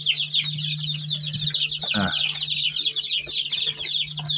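A flock of young chicks peeping constantly: many overlapping high, falling peeps over a steady low hum. One lower, fuller call stands out about two seconds in.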